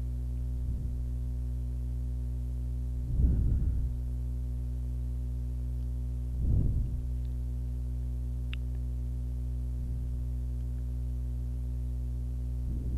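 Steady electrical mains hum, a stack of low steady tones, with two brief soft bumps about three and six and a half seconds in.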